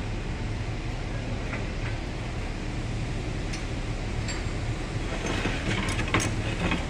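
Steady low machinery hum. From about five seconds in come a handful of light metallic clicks and taps: hand tools against the steel hub of a ship's controllable-pitch propeller during blade fitting.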